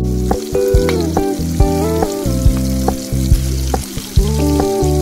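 Background music, held chords with a steady beat, over the sizzle of semolina-coated prawns frying in hot oil.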